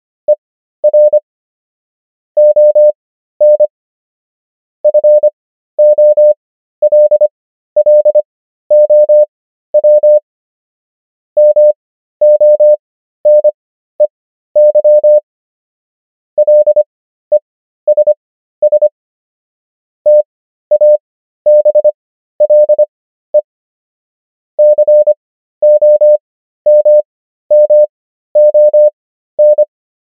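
Morse code: a single steady beep keyed on and off in short dits and longer dahs, grouped into letters and words with longer pauses between them, spelling out common English words. The characters are sent at 25 words per minute, spread out with Farnsworth spacing to 13 words per minute overall.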